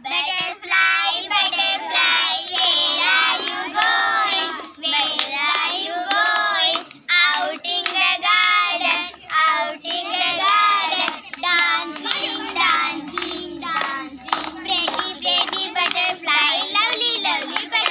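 Children singing a rhyme, with hands clapping along.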